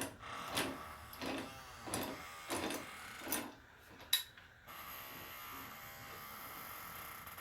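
Metal-on-metal squeaking and scraping as a long threaded part of a tractor hydraulic cylinder is turned off, in even strokes about three every two seconds. The strokes stop about three and a half seconds in, a sharp click follows, and then a steady hiss.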